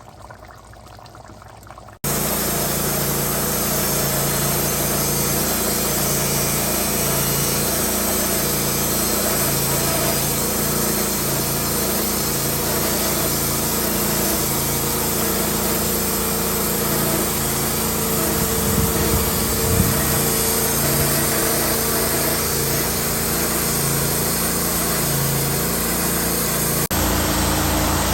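Wood-Mizer LT15 band sawmill running: steady machine noise of the mill working, with a low hum pulsing in a regular rhythm. It comes in abruptly about two seconds in, after a short, much quieter stretch.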